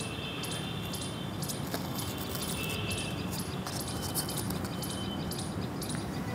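Outdoor background: a steady low rumble with many short, high bird chirps scattered throughout.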